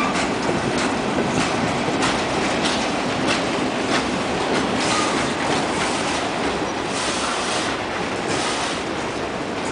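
Freight train cars rolling past close by: a steady rumble of steel wheels on rail, broken by irregular clicks as the wheels cross the rail joints.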